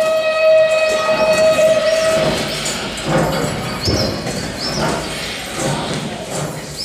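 Recorded train sound effect played over a stage sound system: a long steady whistle note that stops about two seconds in, then the rattle and irregular knocks of a moving train with short repeated high squeals.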